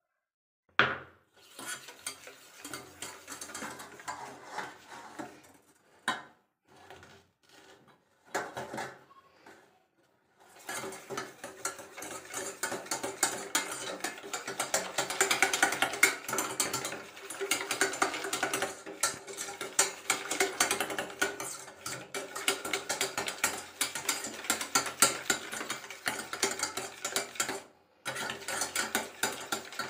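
A few separate knocks and scrapes on a steel bowl, then, from about ten seconds in, a wire whisk beating curd and sugar in the steel bowl: a fast, continuous clatter of the wires against the metal, with a brief pause near the end.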